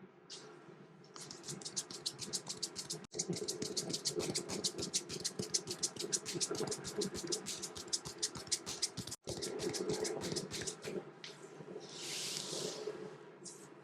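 Fast rhythmic head-massage strokes on the head and hair, about ten crisp hits a second, cutting out abruptly twice for a split second. Near the end a short rustling hiss.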